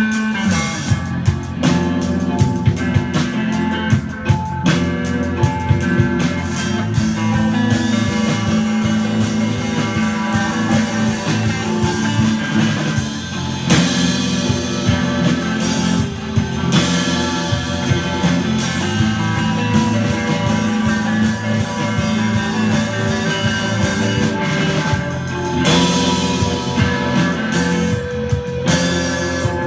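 Live rock band playing, with electric guitars, a fiddle and a drum kit.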